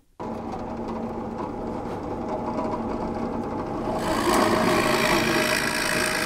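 Electric drill running steadily, boring out waste wood for a mortise in a wooden base plank. About four seconds in, the cutting grows louder.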